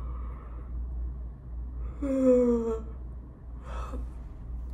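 A woman sighs aloud once about two seconds in, a voiced sigh falling in pitch, followed by a short breath; a steady low hum runs underneath.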